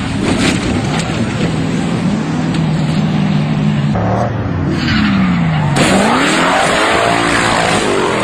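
Off-road race vehicle engines revving hard, the pitch holding steady at first and then sweeping down and up repeatedly in the second half, over a constant noisy rush.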